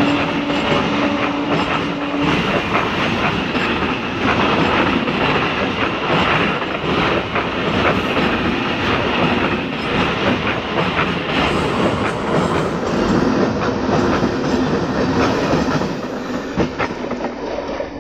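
Howrah–Bardhaman EMU local train running past the platform: a steady rumble of coaches with rapid clickety-clack of wheels over rail joints. A steady tone sounds over the first two seconds, and the noise dies away near the end as the last coach passes.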